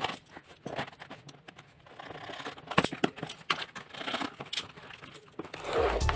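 Utility knife blade slicing through packing tape on a cardboard box, with scratchy scraping, clicks and cardboard flaps being pulled open.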